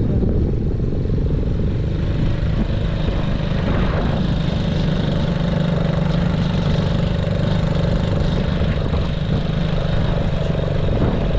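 Motor vehicle engine running steadily at an even pace.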